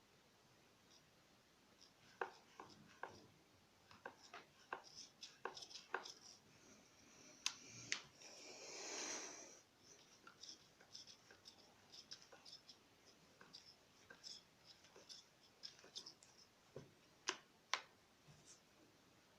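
Light, irregular knocking and clicking from a 2013 Fox CTD Evolution rear shock's damper: play in the compression-mode (CTD) control rod knocking as the shock works. A short rushing hiss swells and fades about halfway through.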